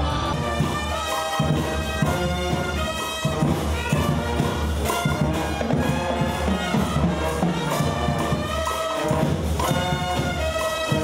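Carnival brass band playing: brass horns holding sustained notes over a steady drumbeat.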